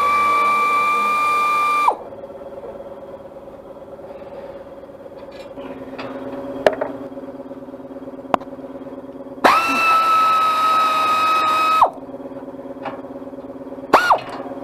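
Power drill running in short bursts with a steady whine while backing out bolts on a baler's pickup. It runs for about two seconds at the start, again for about two seconds past the middle, and in a brief blip near the end. Between the runs a fainter steady hum and a couple of sharp clicks are heard.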